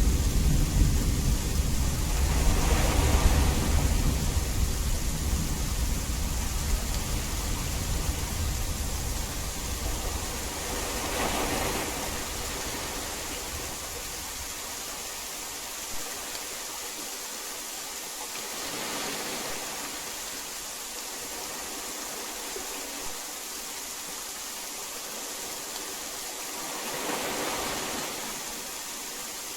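Heavy rain falling in a steady hiss. A low rumble of thunder at the start dies away over the first dozen seconds. The hiss swells softly every eight seconds or so.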